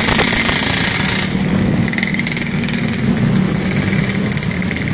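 Motorcycle engines running as a group of bikes rides along, the closest engine a rapid, steady pulsing putter. A high hiss over it drops away about a second in.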